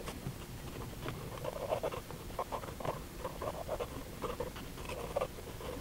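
Medium-tip Sharpie marker stroked along the seams between strips of spray-primed construction paper. It makes a run of short, faint, irregular scratching strokes.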